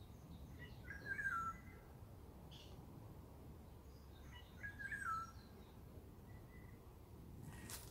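A songbird singing a short whistled phrase twice, about a second in and again near the five-second mark, each phrase ending on a falling note, over faint woodland background noise.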